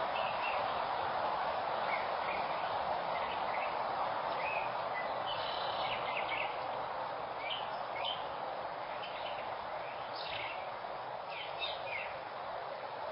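Wild birds chirping and calling in many short calls over a steady hiss picked up by an outdoor security camera's microphone.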